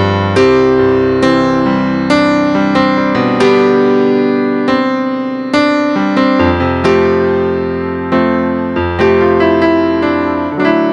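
Solo piano music: chords struck roughly once a second, each left to ring and fade.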